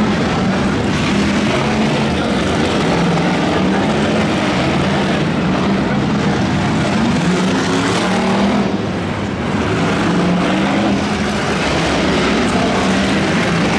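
Race car engines running in a loud, steady din, their pitch wavering up and down.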